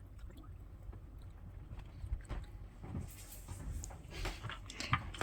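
Cats batting a treat-dispensing puzzle ball about on the floor: scattered soft knocks and clicks of the ball and the dry treats rattling inside it, getting busier about halfway through.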